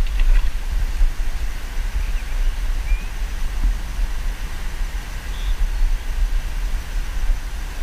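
Wind buffeting a chest-mounted action camera's microphone: a steady, fluctuating low rumble, with a few faint short chirps.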